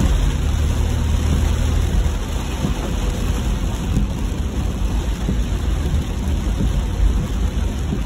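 Heavy rain pattering on a car's roof and windscreen, heard from inside the cabin, over a steady low rumble of the car on the wet road.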